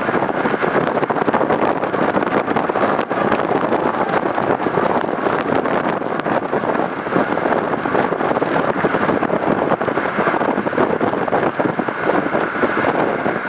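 Hurricane Laura's wind blowing hard and steadily, buffeting the microphone, with many small sharp clicks and knocks through it.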